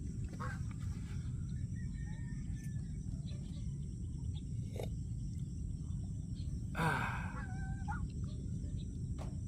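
Steady low outdoor rumble with a few faint bird calls, and a brief louder sound about seven seconds in.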